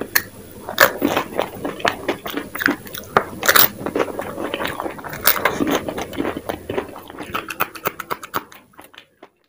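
Close-miked eating of dahi puri: bites into crisp puri shells, then crunching and chewing. Near the end there are quicker small crackles as a raw green chili is bitten, and the sound fades and stops just after nine seconds.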